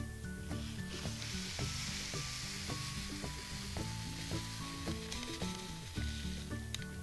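Tiny sprinkle-like candy granules pouring from a foil pouch into a thin plastic bag, a steady grainy hiss that starts about a second in and stops near the end, over background music.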